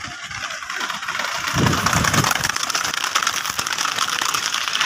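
Several motorcycle engines running as a pack of bikes rides close behind a horse-drawn racing cart, over a dense rushing noise that grows louder after about a second.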